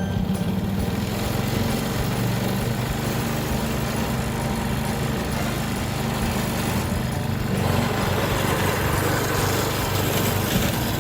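Walk-behind lawn mower's small engine running steadily, with a broader, louder noise joining it about seven and a half seconds in.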